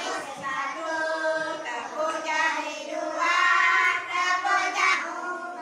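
Young children singing together in a classroom, a string of held, pitched notes.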